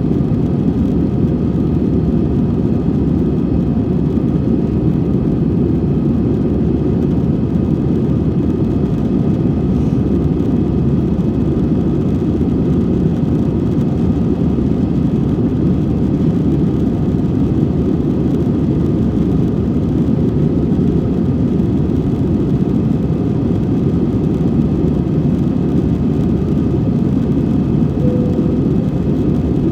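Steady jet engine and airflow roar inside a jet airliner's passenger cabin during the climb after takeoff, a deep even rumble with a faint whine on top.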